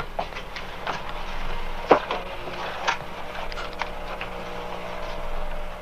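Footsteps and small knocks on a hard floor, irregular clicks a few to the second with one sharper knock about two seconds in, over the steady low hum of an old film soundtrack.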